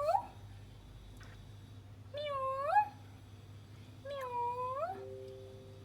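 A domestic cat meowing: the tail of one meow at the start, then two more meows about two seconds apart, each dipping and then rising in pitch. A faint steady tone sounds for about a second near the end.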